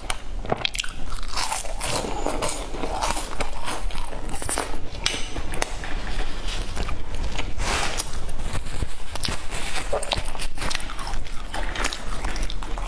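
A person biting and chewing crisp, flaky baked pastry close to the microphone: a continuous run of crunching and crackling crust with chewing sounds.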